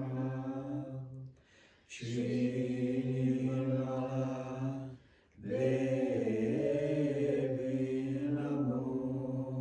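A mantra chanted in long held notes on a steady low pitch, breaking off twice for a moment.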